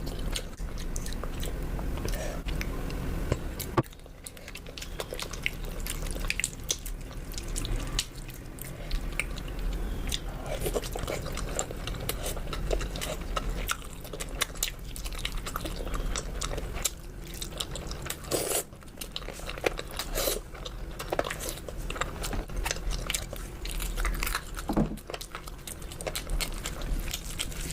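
Close-miked biting and chewing of spicy chicken: a run of irregular crunches and sharp clicks.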